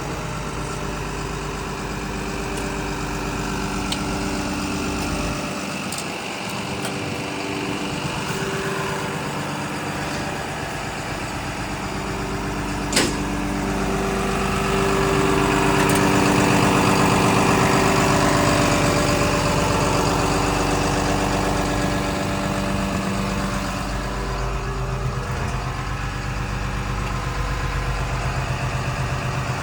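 Six-cylinder diesel engine of a 2018 Komatsu D61PXi-24 bulldozer running steadily, growing louder for a few seconds about halfway through, with a single sharp click shortly before.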